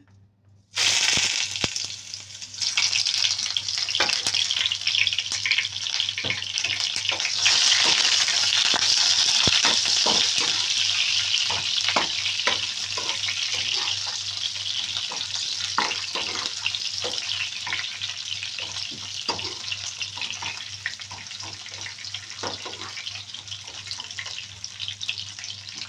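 White onion rings hitting hot oil in a nonstick frying pan and sizzling, starting suddenly under a second in and easing off gradually. A metal spoon scrapes and taps the pan as the onions are stirred.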